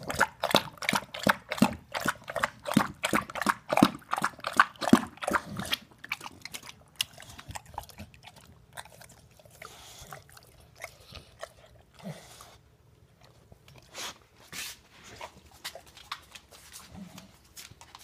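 English bulldog working at its bowl with its mouth, a quick run of wet smacking clicks about five a second. About six seconds in they stop, and fainter, scattered smacks follow as the dog licks its lips.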